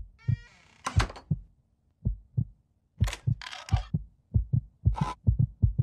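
Cartoon heartbeat sound effect: low thumps in pairs that speed up steadily toward the end, building tension. A short creak near the start and brief clicking and rattling of the door's lock and chain come in between the beats.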